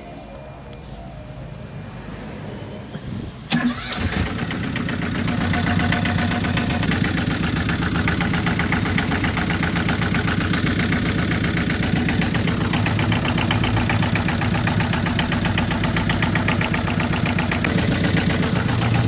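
A car engine starting about three and a half seconds in, after a sharp click, then idling steadily.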